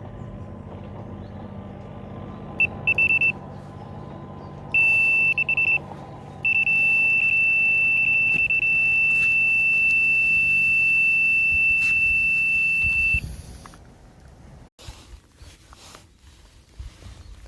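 Electronic carp bite alarm sounding a single high tone: two short stuttering bursts of beeps, then a near-continuous tone for about seven seconds before it stops, the signal of a fish taking line from the rod (a run). After it stops there are only faint knocks.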